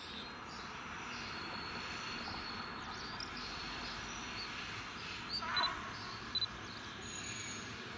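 Insects chirping in a steady high buzz over the faint running of a DR class 114 diesel locomotive approaching slowly with a passenger train. A few brief high chirps come a little past the middle.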